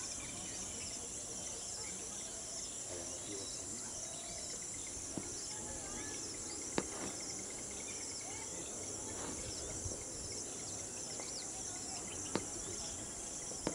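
Steady high-pitched chorus of insects. A few sharp clicks stand out above it, the loudest about seven seconds in.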